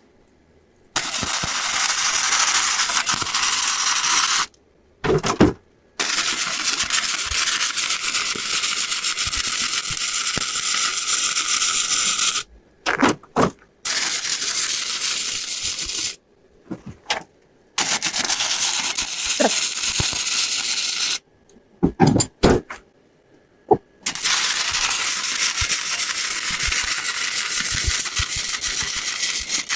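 Welding arc crackling and hissing on steel exhaust pipe in five runs of a few seconds each, each stopping abruptly, with brief sputters and pops between them as the arc is struck again.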